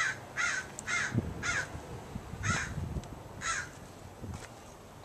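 A bird giving a series of short, harsh calls, six in all, quick at first and then about one a second, with a few low thumps underneath.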